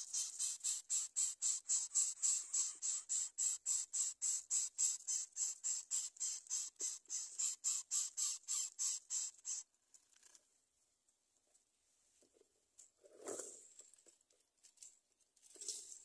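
A fast, regular high-pitched pulsing call, about four pulses a second, that stops abruptly a little over halfway through, followed by faint rustling in dry nest fronds with two louder rustles near the end.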